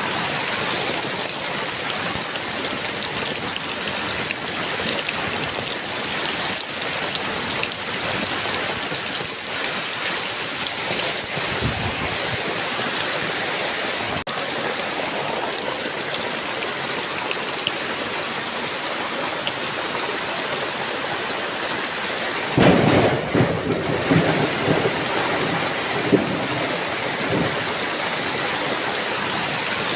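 Steady heavy rain. About three quarters of the way through, a clap of thunder breaks in and rumbles on for a few seconds.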